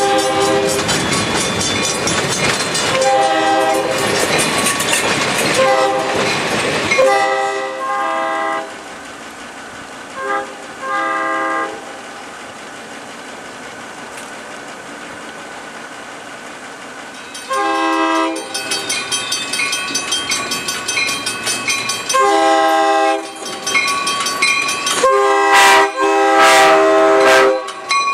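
Nathan K5LA five-chime air horn on a CF-7 diesel locomotive, blowing a string of long and short blasts over the rumble of the engine and steel wheels on the rails. The loudest blasts come near the end as the locomotive passes close.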